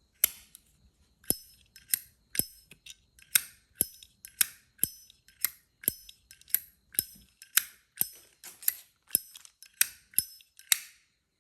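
Vintage 1962 Zippo lighter's hinged steel lid flicked open and snapped shut over and over: a string of sharp metallic clicks, each with a brief high ring, about two a second and some in quick pairs.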